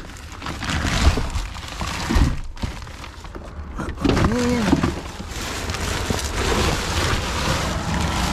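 Plastic bags and bubble wrap crinkling and rustling as gloved hands dig through rubbish in a dumpster, with a few knocks of items shifting. A brief rising-and-falling tone sounds about four seconds in.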